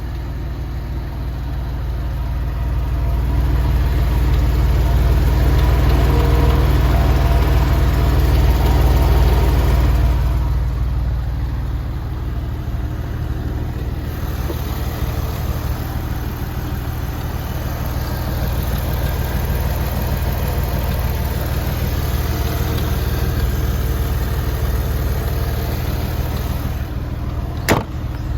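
Porsche 996 Carrera 4 flat-six engine running, louder for several seconds and then settling to a steady run, with one sharp click near the end. It is run to check whether an abnormal noise has almost gone.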